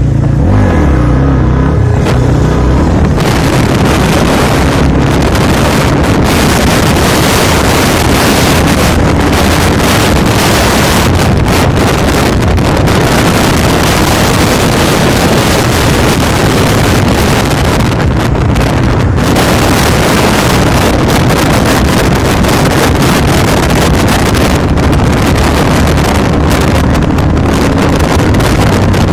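Heavy wind rushing over the microphone of a motorbike travelling at highway speed, with the engine's drone and road noise underneath, steady throughout.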